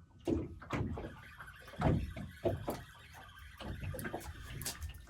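Irregular knocks and thumps from handling on a fishing boat, the loudest about two seconds in.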